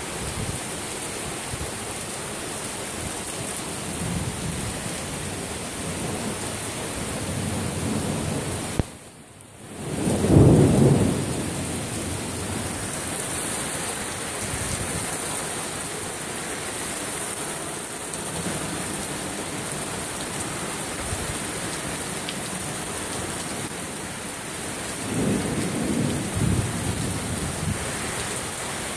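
Heavy rain pouring down in a thunderstorm, a steady hiss of rain and wind. About ten seconds in, the sound briefly drops out and then a loud clap of thunder breaks and rolls off. A second, softer swell of low rumbling comes near the end.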